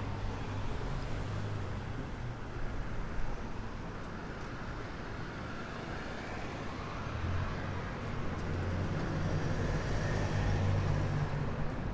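City street traffic: cars running and passing, with a low engine hum that eases off after about two seconds and grows louder again from about seven seconds in.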